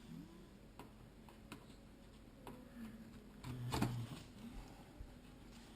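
Faint scattered plastic clicks and taps of a RAM stick being handled and lined up in a motherboard's memory slot, with a slightly louder knock at about three and a half seconds.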